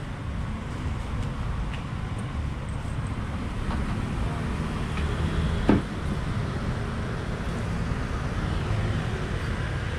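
Steady street traffic with a low rumble. Just past the middle comes one short, loud sound whose pitch drops quickly.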